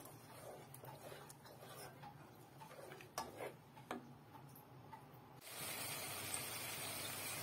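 Wooden spatula knocking and scraping against a karahi as thick fried onion masala is stirred: faint scattered knocks. About five seconds in, a steady sizzling hiss of the masala frying in oil begins.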